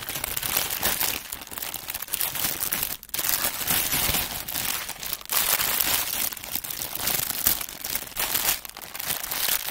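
Small plastic bags of diamond-painting drills crinkling and rustling as they are handled and pushed into place, almost without a break apart from a few short pauses.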